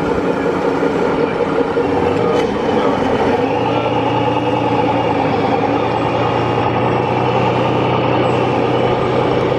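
Radio-controlled scale tipper truck running, its onboard sound module giving a steady diesel truck-engine drone as it drives off loaded with sand; a deeper hum joins about three and a half seconds in.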